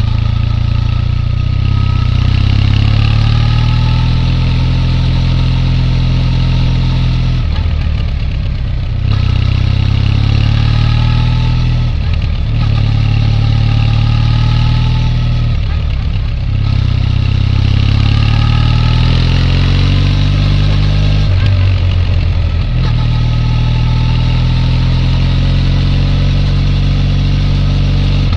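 Triumph Bonneville T214's air-cooled 360° crank vertical twin running at a steady pitch, dropping off briefly about four times before picking up again.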